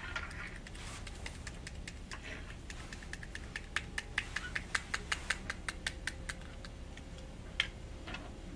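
Light, rapid clicking as a foil powder pack of phosphate reagent is tapped and flicked over a glass sample vial to shake the powder in: a run of sharp ticks, about four a second for several seconds, then one more tick near the end.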